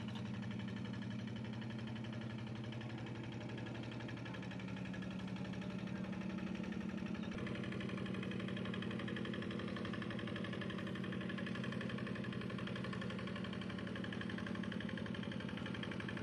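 A small engine running steadily at an even, low pitch, its sound brightening slightly about halfway through.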